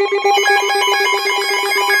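NOAA weather alert radios sounding their alert alarms together, a rapid beeping of about eight pulses a second. A second, higher-pitched alarm joins in a moment in, overlapping the first. The alarms signal an incoming severe thunderstorm warning.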